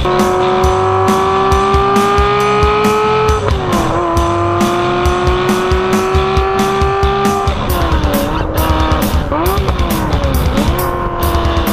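Ferrari F355 V8 engine pulling through the gears, its pitch climbing steadily, with a gear change about three and a half seconds in. In the second half the revs rise and fall repeatedly. Background music with a steady beat runs underneath.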